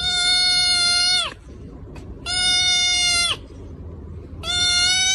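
A cat giving three long, level, high-pitched meows about two seconds apart, each dropping in pitch as it ends.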